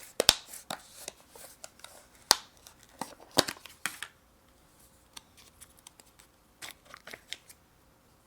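Knife and cream cheese being worked in a baking pan, with the cream cheese packaging handled: a string of sharp clicks and short scrapes with some crinkling, busiest in the first four seconds, then a few lighter clicks.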